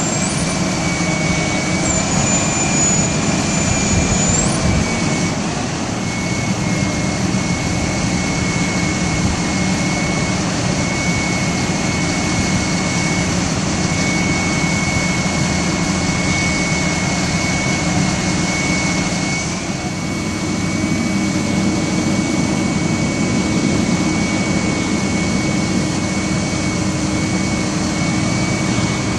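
Ford F550's 6.8L Triton V10 running steadily while it drives the hydraulics of an Altec TA37M aerial boom as the boom is worked, with a steady high whine from the hydraulic system over the engine noise.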